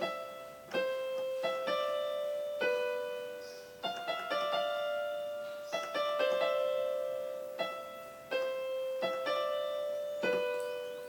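Instrumental break in a song: a slow melody of single notes and chords on a keyboard, each struck and left ringing to fade out before the next.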